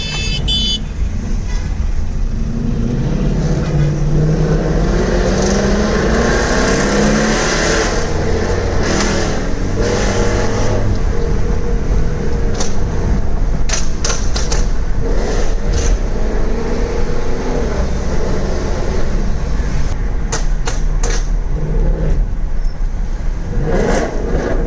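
Ford Mustang V8 through a Borla ATAK cat-back exhaust, revved up and down repeatedly, with sharp pops and cracks on the overrun from a remap tuned for crackles and gunshots. The cracks come in quick clusters about halfway through and again near the end.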